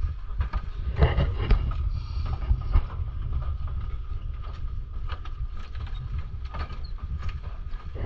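Footsteps and irregular knocks on the wooden planks of a pedestrian footbridge, over a steady low rumble of wind on the microphone.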